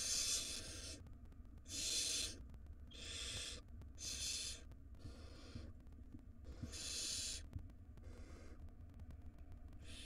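Barn owl nestlings begging for food: a string of hissing calls, each under a second long, repeated about once a second.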